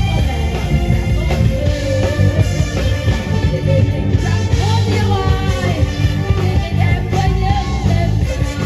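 Loud upbeat song played through PA speakers, a singing voice over a steady, heavy bass line.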